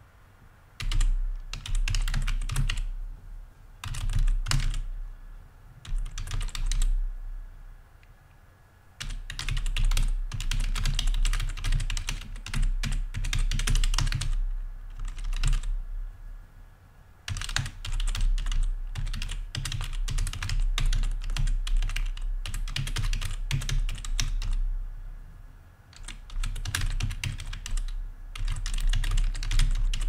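Typing on a membrane computer keyboard in runs of quick key presses broken by short pauses, with a dull low thud under the keystrokes.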